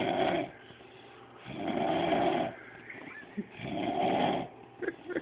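A person snoring, one long snore about every two seconds, each lasting about a second.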